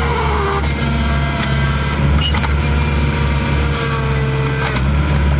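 Diesel engine of a heavy machine running steadily at a constant speed.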